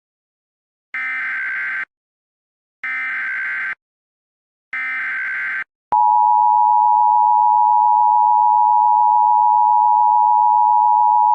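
Emergency Alert System SAME header: three short bursts of warbling data tones about a second apart. About six seconds in, the EAS attention signal starts abruptly as a steady, louder tone.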